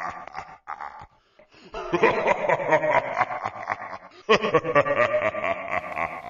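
Laughter in several bouts, with a pause of about a second near the start.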